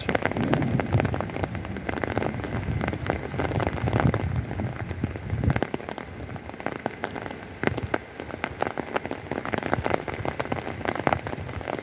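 Light rain pattering on an umbrella overhead: many small drop ticks over a steady hiss, with gusts of wind rumbling low on the microphone in the first half.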